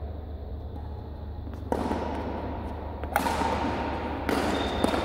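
Badminton rackets smacking a shuttlecock during a rally, three sharp hits about a second and a half apart, each ringing out in the echo of a large sports hall.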